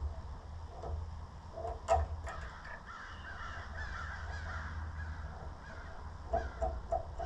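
A crow cawing, a quick run of short caws near the end, with a single sharp metallic clink about two seconds in.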